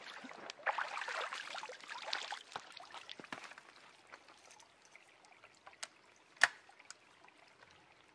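Water pouring and splashing as a shotgun is lifted out of a shallow creek, for about three seconds, followed by a few sharp clicks and knocks, the loudest about six and a half seconds in.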